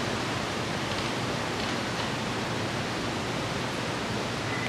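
A steady, even hiss with nothing else standing out.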